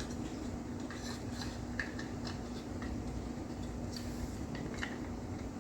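Faint scattered clicks and light taps of plastic model-kit seats being handled and set into the car's interior tub, over a steady low hum.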